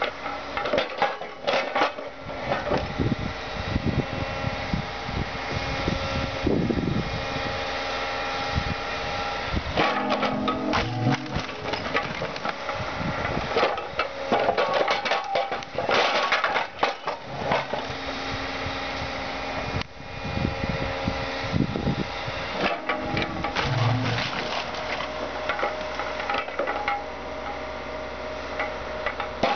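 Excavator running steadily while its bucket crushes a Volkswagen Jetta Mk2 car body, with repeated irregular crunching, creaking and cracking of metal and breaking parts.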